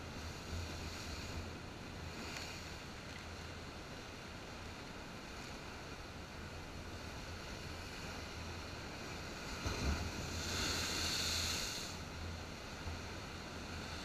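Mediterranean surf breaking on a rocky shore, recorded through a waterproof camera housing: a steady wash of waves over a low wind rumble. About ten seconds in, a big wave hits the rocks with a thump and is followed by a couple of seconds of loud hissing foam.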